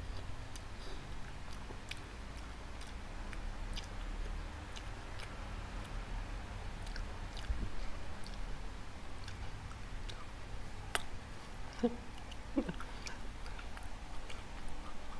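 Close-up chewing of soft Spam luncheon meat, with small wet mouth clicks scattered throughout and one sharper click a little past the middle.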